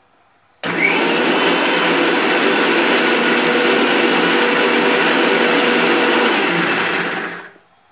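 Electric mixer grinder with a stainless-steel jar grinding chutney: switched on about half a second in, it runs loud and steady for about six and a half seconds, then winds down and stops near the end.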